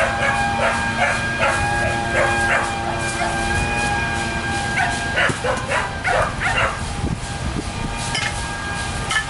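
A dog barking repeatedly in two runs of short barks, the second about five seconds in, over background music with held notes.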